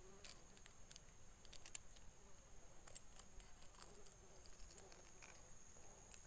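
Faint small clicks and rattles of a metal fish lip-gripper and a soft plastic frog lure being handled while unhooking a small snakehead, over a steady faint high hiss.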